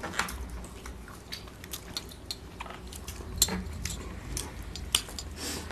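Two people eating rice and curry by hand from plates: fingers scraping and tapping on the plates, giving scattered small clicks, with a sharper click about halfway through and another near the end.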